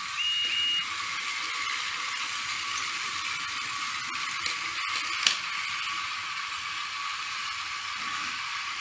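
Battery-powered Thomas & Friends toy trains whirring steadily as their motors drive them along plastic track. There is a brief high tone just after the start and a sharp click about five seconds in.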